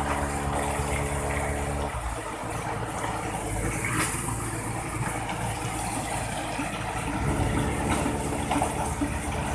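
Engine of a mobile concrete mixing machine running steadily over a constant churning, water-like rush; its engine note drops away about two seconds in and comes back strongly about seven seconds in.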